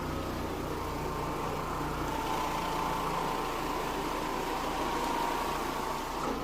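Oreck orbital floor machine running steadily, scrubbing pre-sprayed carpet to break up the soil: a constant motor hum with a steady whine.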